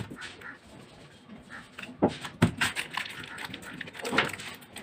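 Plastic epoxy jars and a steel spatula being handled on a table: clicks and clatter, with two sharp knocks close together about two seconds in.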